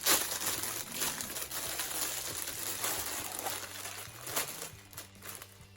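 Plastic packaging crinkling and rustling as a sample pack is pulled open by hand. It is loudest at the start and dies down near the end.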